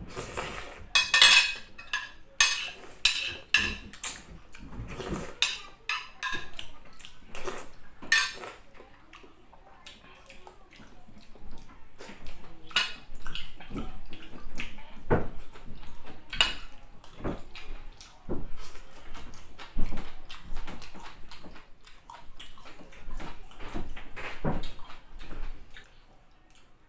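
Noodles being slurped loudly off a fork in a run of noisy slurps over the first eight seconds or so, then chewing and scattered clinks of a metal spoon and fork against a plate.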